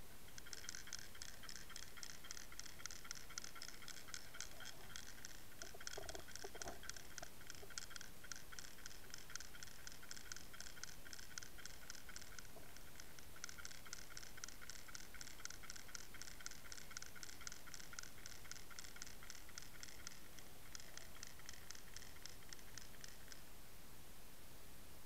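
Rapid, even ticking heard underwater, pausing briefly about halfway through and again near twenty seconds, and stopping a couple of seconds before the end. A short lower rustle comes about six seconds in.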